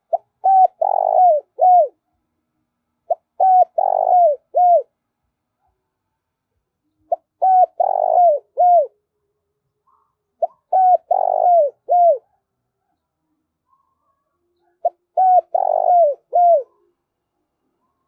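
Spotted dove cooing: five phrases spaced about three to four seconds apart, each a couple of short notes followed by a longer coo and two falling coos.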